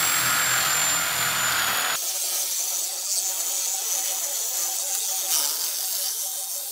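Reciprocating saw running and cutting through the vehicle's body panel. A high, steady whine for about two seconds, then an abrupt change to a thinner, rapidly pulsing buzz.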